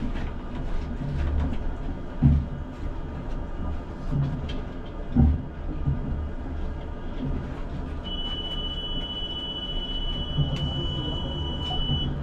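ČKD Tatra T6A5 tram running on its rails, heard from the driver's cab: a steady low rumble with scattered clicks and two heavy thumps, about two and five seconds in. In the second half a steady high-pitched tone holds for about four seconds, then stops.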